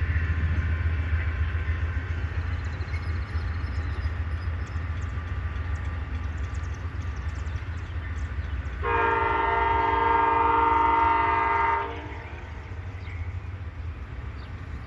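A distant train's air horn sounds one long blast of about three seconds, a chord of several tones, over a steady low rumble.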